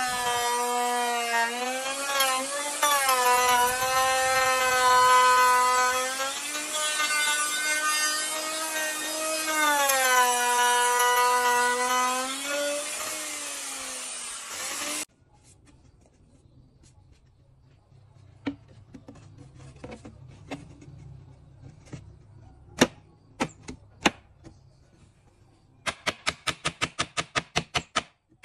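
Handheld electric wood router running and cutting along a wooden frame, its motor whine sagging in pitch under load and recovering, for about fifteen seconds before it stops suddenly. A few scattered taps follow, then near the end a quick, even run of hammer taps on wood.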